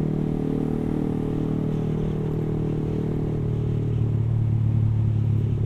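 Yamaha R15 single-cylinder motorcycle engine running steadily while cruising, heard from the rider's seat. About three and a half seconds in, its note grows deeper and slightly louder.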